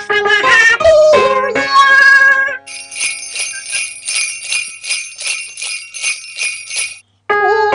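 Background music: a tune with a wavering melody stops about two and a half seconds in. Jingle bells are then shaken in a steady rhythm, about three shakes a second, for about four seconds. After a brief silence a new tune starts just before the end.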